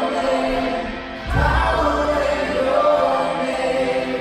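Church worship music: a slow worship song sung by a group of voices with instrumental backing, in long held notes. The sound dips briefly and then swells again with a new phrase about a second in.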